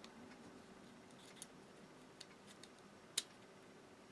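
Faint, scattered small clicks and taps of hand tools and small plastic parts of a cassette walkman being handled during disassembly, with one sharper click about three seconds in.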